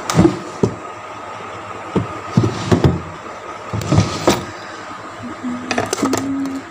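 Rummaging through household things: a string of irregular knocks and bumps as objects are moved and the phone is handled, with a short low creak near the end.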